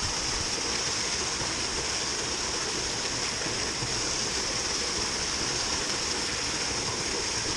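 Steady rush of water pouring at a canal lock, an even hiss with no change throughout.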